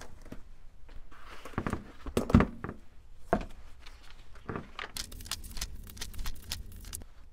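Handling noise on a workbench: things slid aside, a ring binder set down and opened, and its paper pages turned. Scattered knocks and rustles, the loudest knock about two seconds in, then a quick run of papery rustles and clicks near the end as the pages are leafed through.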